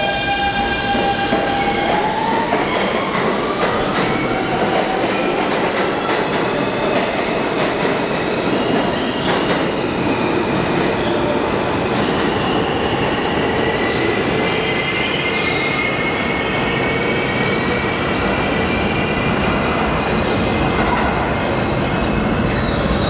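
R160 subway train pulling out of an underground station: the electric whine of its traction motors rises in pitch as it starts moving, over a loud rumble of wheels on rail. A second high whine climbs slowly through the latter half as the train runs off down the tunnel.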